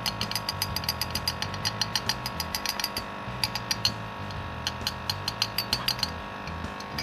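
Background music with a fast, even clicking beat over held tones and a stepping bass line; the clicks thin out and stop briefly around the middle, then return.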